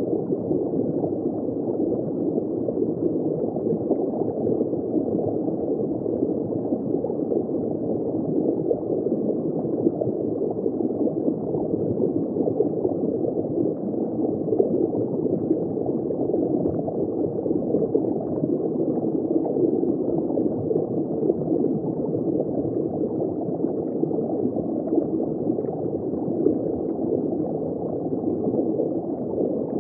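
Steady gurgling rush of water circulating through a saltwater reef aquarium, dull in tone with no clear individual drips or splashes.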